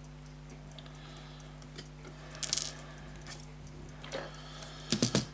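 Small watchmaking tools handling a tiny pin at the bench: a brief scrape about halfway through and a quick run of sharp little clicks near the end, over a steady low electrical hum.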